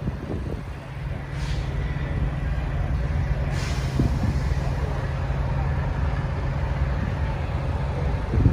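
Heavy diesel truck engine idling with a steady low rumble, with two brief hisses about a second and a half in and again two seconds later.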